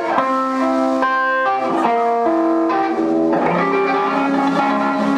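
Electric guitar played through an amp, picking a melody of distinct sustained notes, one after another. The sound grows denser and fuller about three seconds in.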